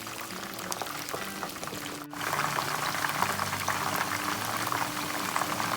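Food cooking in a pot or pan, with a steady bubbling crackle that grows louder after a cut about two seconds in. Soft background music with held notes plays underneath.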